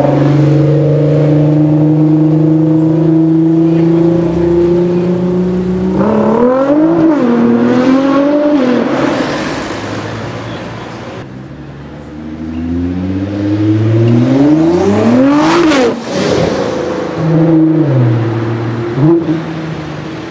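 Nissan GT-R R35's twin-turbo V6 through a full HKS exhaust. It holds a steady, slowly rising drone, is revved up and down a few times, then accelerates hard with its pitch climbing steeply to a peak about three-quarters of the way in before dropping back.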